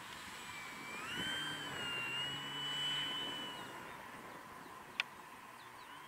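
Electric motor and propeller of a Durafly Tundra RC plane taxiing: a whine that climbs in pitch about a second in, holds, then fades after about four seconds. A single sharp click about five seconds in.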